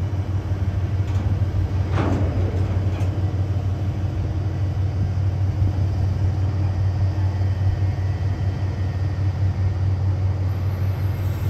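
Diesel freight locomotive, a JR Freight DF200 diesel-electric, with its engine running in a steady low drone that slowly grows louder. A single clank sounds about two seconds in.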